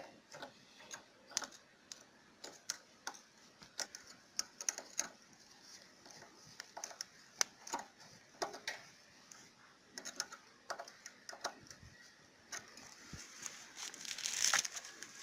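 Screwdriver tightening the screw of a gas-hose clamp, with irregular faint clicks and ticks as the screw is turned. A louder rustle comes near the end.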